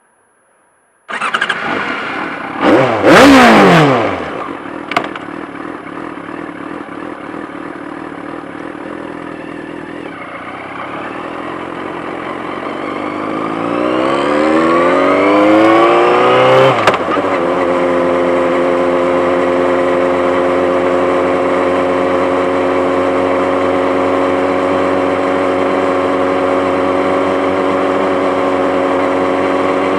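Yamaha FZ6-N's inline-four engine, breathing through a Two Brothers aftermarket exhaust, starts about a second in with a quick rev that falls back. It runs steadily, then revs climb gradually for several seconds, drop off sharply, and settle into a steady idle. The sound is picked up from under the bike's seat.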